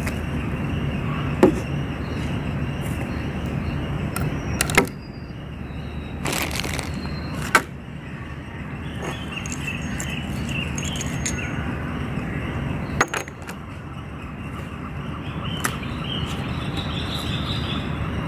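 A few sharp knocks and clicks as radio gear is set down and handled on a wooden table, over a steady hiss, with faint high chirps near the middle and again near the end.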